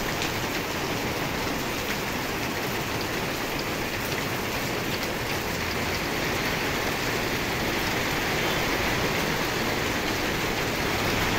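Heavy rain falling steadily onto wet pavement and puddles, a continuous hiss that grows a little louder in the second half.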